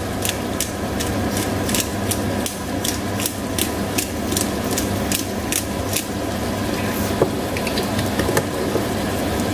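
Hand pepper mill twisted over a frying pan: a quick, even run of grinding clicks, about three a second, for some six seconds, then only a few scattered ones.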